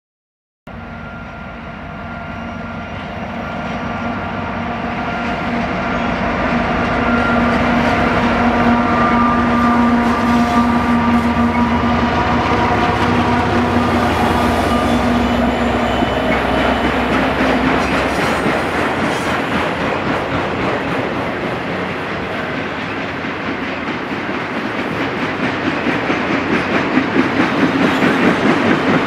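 Union Pacific freight train passing close by, starting abruptly. First its diesel locomotives run with a steady engine drone, then autorack cars roll past, their wheels clicking over the rail joints in a rhythm that grows louder and more regular near the end.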